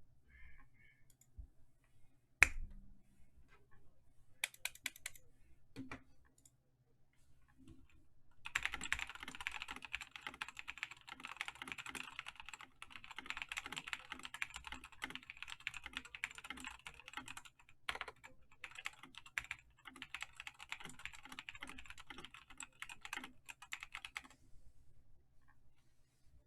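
Typing on a Razer BlackWidow Tournament Edition Chroma V2 mechanical keyboard with Razer Yellow linear switches: a few scattered keystrokes, one sharp loud click about two and a half seconds in, then a long run of fast, continuous typing with two brief pauses, which stops a couple of seconds before the end.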